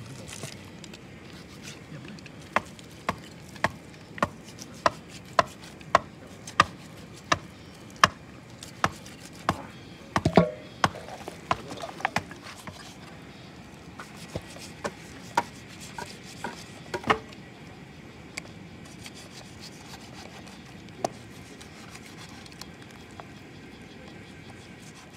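Knife cutting through a raw pig's head in a steel bowl: a steady run of sharp clicks about every two-thirds of a second as the blade works through skin and cartilage, then a few scattered clicks, stopping well before the end.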